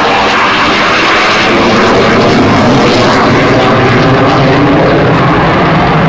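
Loud, steady jet engine noise from a twin-engine Sukhoi Flanker-family fighter flying a display manoeuvre overhead. The noise grows slightly stronger about two seconds in.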